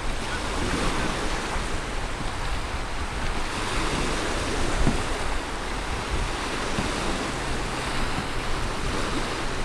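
Small wind-driven waves breaking and washing against the shoreline in choppy water, with wind buffeting the microphone.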